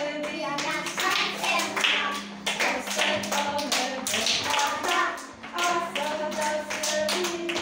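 Hands clapping in a quick, steady rhythm along with a children's song, sung melody and music running underneath.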